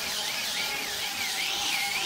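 Angle grinder with a sanding disc running against a wooden slab: a high motor whine that wavers up and down in pitch several times a second as the disc is swept over the wood, over a steady sanding hiss.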